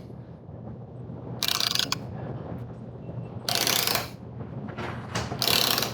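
Ratcheting tap wrench clicking in about four short bursts as its handle is swung back between turns, while a metric tap cuts threads into a thin aluminum track.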